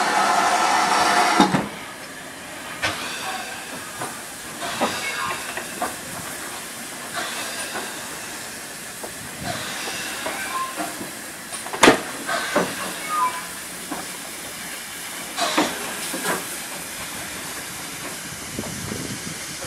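GWR 5600 class 0-6-2 steam tank engine No. 5619 moving slowly. A loud steady hiss of steam cuts off suddenly about a second and a half in. After that come soft, irregular chuffs and clanks roughly once a second over a low steam hiss, with the loudest about halfway through.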